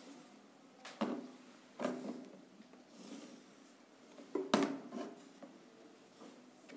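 A few brief scrapes and knocks as a marker is drawn along a ruler held against a whiteboard, the ruler shifting on the board between strokes, the loudest cluster about four and a half seconds in.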